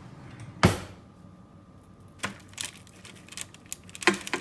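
A knife cutting down through a baked cauliflower pizza crust onto a parchment-lined baking sheet: one loud knock about half a second in, then a run of sharp taps and clicks as the blade meets the pan.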